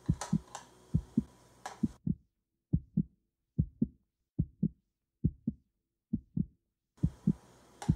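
Heartbeat sound effect: a steady lub-dub double thump, a little under one beat a second. The background hiss drops out for a few seconds in the middle, leaving only the heartbeat.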